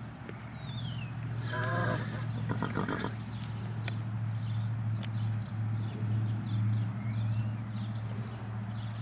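A horse whinnies once, a wavering call of about a second and a half starting around a second and a half in, over a steady low hum. Small birds chirp faintly, and there are a couple of sharp clicks near the middle.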